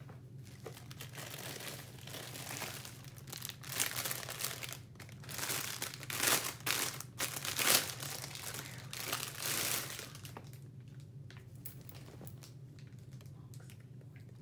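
Crinkling and rustling of packaging being handled, in bursts for several seconds and loudest around the middle, then dying down.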